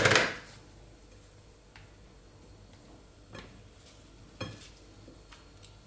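Raw potato slices being handled in a glass baking dish: a brief clatter at the start, then faint taps and clicks of slices being laid against each other and the glass, twice near the middle.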